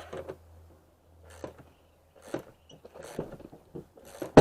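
Scattered light clicks and knocks of tools and parts being handled, with one sharp, louder knock near the end, over a low steady hum.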